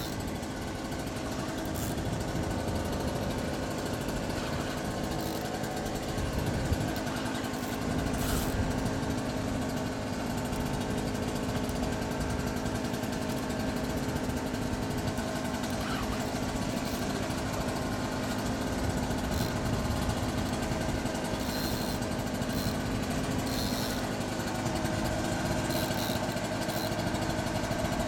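An engine running steadily at a constant speed, an even drone that does not change, with a few faint clicks over it.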